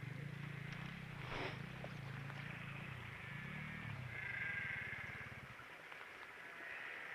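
A sheep bleating once, a drawn-out call a little past halfway, over a low steady drone that cuts off shortly after.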